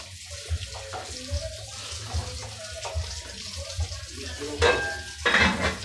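Close-miked eating by hand: fingers working rice and fried fish on a plate, then wet chewing and mouth smacking. There are two louder bursts near the end.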